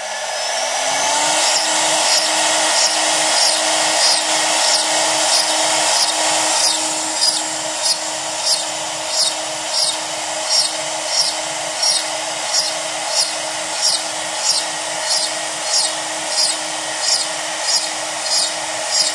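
CNC router spindle whining up to speed in the first second or so, then running steadily while an eighth-inch upcut ball-nose bit plunges straight, unpecked holes into a walnut cribbage board. Each plunge adds a short burst of cutting noise, a little under two a second, in an even rhythm.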